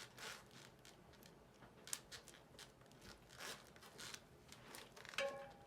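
Several faint, brief scrapes and a sharp click, spread irregularly, as the mountain bike with its newly fitted hydraulic brake pads is given a couple of quick test bumps.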